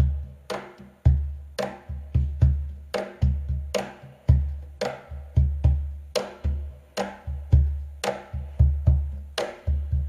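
Peruvian cajón played by hand alone, alternating deep bass strokes with sharp slaps near the top edge in a steady rhythm, about two main strokes a second with quick grace hits between.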